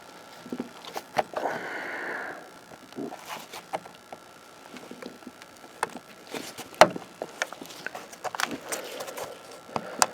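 Scattered clicks and knocks of a screwdriver and a plastic license plate light housing being worked into a bumper, with a short scrape or rustle about two seconds in and a sharper knock near the end.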